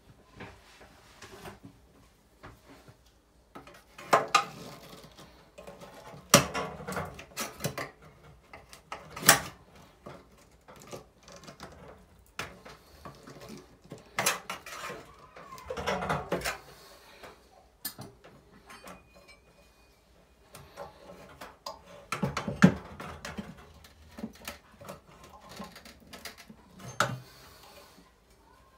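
Sheet-metal exhaust fan housing clanking and rattling in several bursts of knocks and clatter as it is pulled and worked loose by hand.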